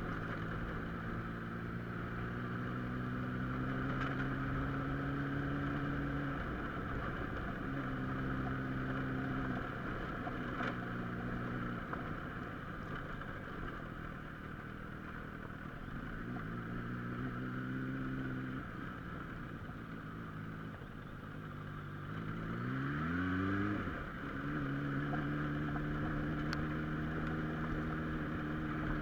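A car's engine and road noise while it is driven along a rough dirt track. The engine note holds, drops away and comes back several times, with a quick rising rev about three-quarters of the way through.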